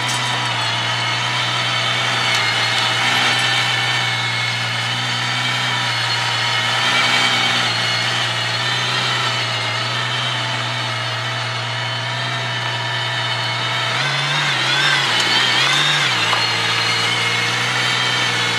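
Aston Martin Valkyrie's naturally aspirated Cosworth V12 idling steadily, its pitch lifting briefly two or three times about fourteen seconds in as the car moves off.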